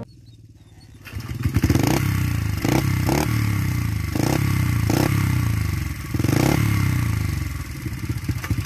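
Honda CRF 70 dirt bike's small single-cylinder four-stroke engine starting up about a second in, then running with repeated blips of the throttle, its pitch rising and falling several times.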